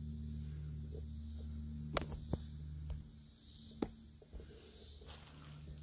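Bees humming inside a hollow in a tree trunk: a steady low hum, like an air conditioner running, that fades about halfway through. A steady high insect trill sits above it, with a few sharp clicks.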